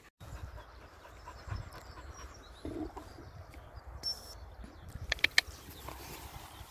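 Light footsteps and rustling on dry earth and grass over a low rumble, with a quick run of three or four sharp clicks about five seconds in.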